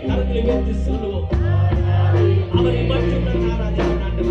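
Live worship band playing through a PA: electric bass and drum kit with a steady cymbal beat, keyboard, and a man singing a worship song into a microphone.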